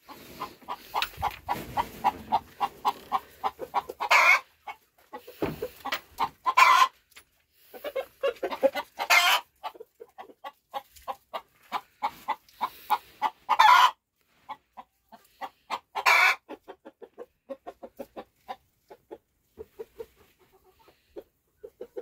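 Chickens clucking in a coop: a fast, steady run of short clucks broken by several louder, longer calls, thinning out toward the end.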